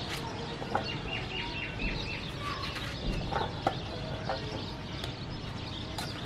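A knife cutting through a raw calabash (bottle gourd), with a few short crisp cuts. In the background a bird gives a quick run of about six short high chirps about a second in.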